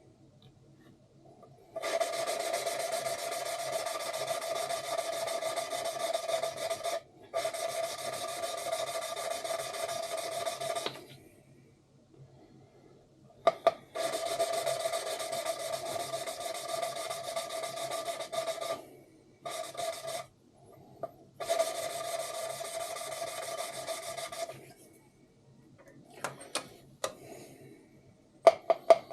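Valves being lapped into their seats in a Cummins diesel cylinder head: a lapping tool turns each valve against its seat with grinding paste, giving a steady rasping buzz with a steady tone in it. It runs in stretches of a few seconds with short pauses between them.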